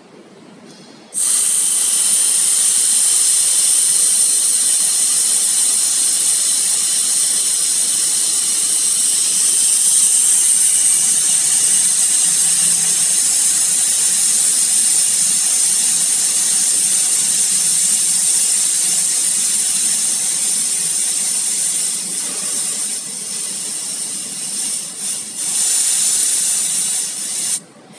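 Air hissing out of a Toyota C-HR's rear tyre through the valve stem as a finger holds the valve core down, deflating the tyre. The hiss starts about a second in and holds steady, then wavers and breaks off briefly a few times near the end before cutting off suddenly.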